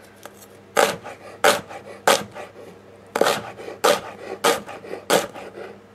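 Chef's knife slicing a shallot into half rings on a wooden cutting board: eight crisp knocks of the blade through the shallot onto the board, about one every 0.6 seconds, with a short pause after the third.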